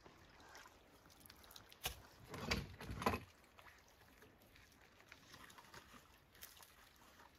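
A sharp click, then a short run of knocks and scrapes about two to three seconds in, as a man clambers out of a canoe onto a fallen log across a creek. The rest is faint running water.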